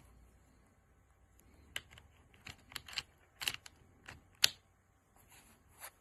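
Irregular key presses on an RK Royal Kludge S98 mechanical keyboard: about a dozen separate clacks, not steady typing, the loudest about four and a half seconds in.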